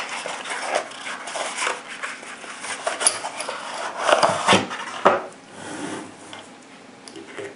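A cardboard ammunition box being opened by hand and its cartridge tray slid out, making rubbing and scraping with many small clicks and taps; the sharpest knocks come about four to five seconds in.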